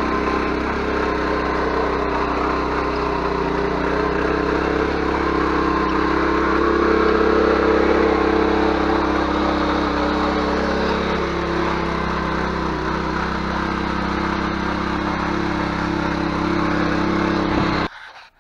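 Ruris 731K motor tiller's engine running steadily as its tines till the soil, a little louder for a few seconds in the middle. It cuts off suddenly near the end.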